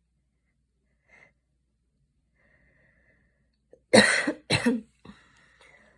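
A young woman's two hard coughs in quick succession about four seconds in, then a faint breath: post-exercise coughing after a short run.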